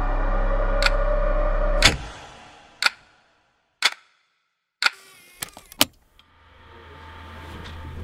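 A clock ticking once a second over a low sustained drone that stops with a hit about two seconds in. The ticks carry on alone with a few quicker clicks, then a rising swell builds into a loud hit at the end.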